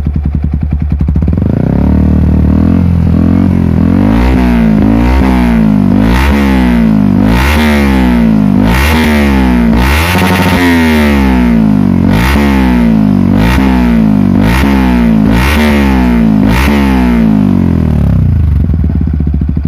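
Yamaha WR 155R's single-cylinder engine through a Daytona GP Taper full-system exhaust, revved again and again in quick throttle blips about once a second, each rising and falling in pitch, then dropping back to idle near the end.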